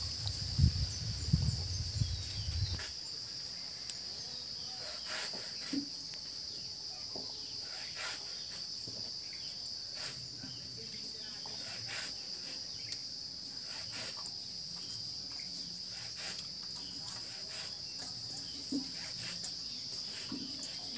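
Insects trilling in a steady, high, continuous drone, with scattered faint clicks. In the first three seconds a louder low rumble with a couple of sharp knocks sits underneath.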